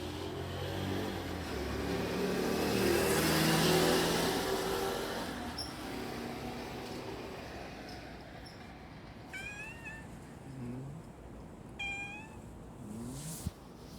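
A brown-tabby-and-white cat meowing in a plaintive way: about four short calls in the last five seconds, each bending up and down in pitch. Before them a vehicle passes, loudest about four seconds in.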